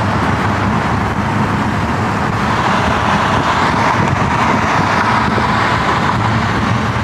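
Steady road traffic noise, even and unbroken.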